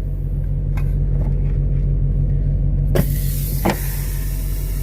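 Steady low drone of an idling semi-truck engine. About three seconds in there are two sharp clicks, and a hiss starts at the same time.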